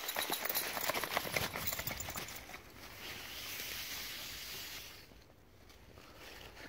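Footsteps through a thick layer of dry fallen leaves, crunching and rustling. The crunching is dense for the first two seconds or so, turns into a softer rustle, and dies down about five seconds in.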